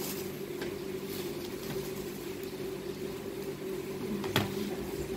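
Steady low electrical hum, with light rustling of a plastic bag and a few small handling clicks, and one sharper click about four seconds in.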